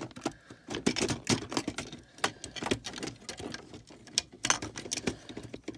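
Hard plastic Lego pieces clicking and rattling against each other as a hand handles and sorts built sets: rapid, irregular clicks.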